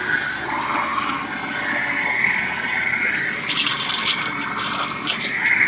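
Bissell Lift-Off upright vacuum cleaner running steadily while it sucks grit off the floor, with loud rattling, scraping bursts a few times from about three and a half seconds in.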